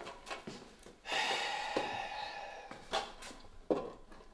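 A long breathy exhale about a second in, fading away, then two sharp clicks of plastic DVD cases being flipped in a wooden bin.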